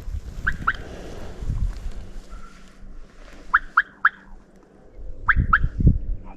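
Wild turkey yelps: three short runs of two or three sharp notes each, with low thumps under the last run.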